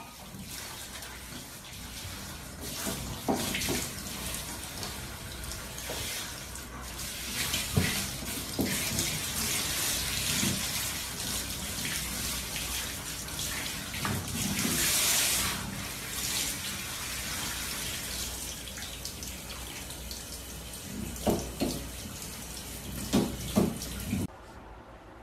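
Handheld shower head spraying water over a dog in a shower stall: a steady hiss of running water with a few short knocks, cutting off abruptly near the end.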